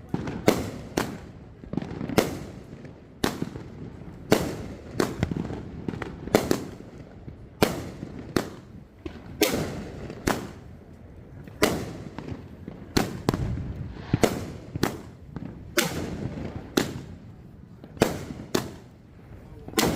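Major League Pyro 'F-35 Lightning' 30-shot firework cake firing: a rapid, irregular run of sharp bangs, about two a second, each followed by a low rumble.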